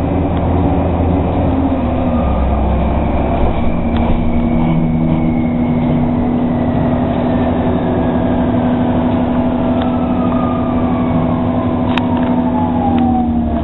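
Interior sound of a TTC Orion VII NG diesel-electric hybrid bus on the move: steady drivetrain hum with a whine from the electric drive that falls slowly in pitch as the bus slows.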